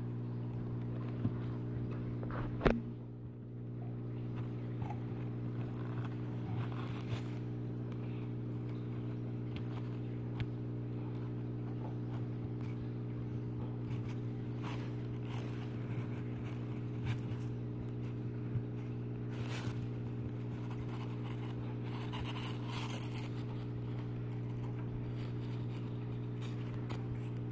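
Scattered rustling and scraping as a cloth snake bag and paper towels are handled, with one sharp knock about three seconds in, over a steady low hum.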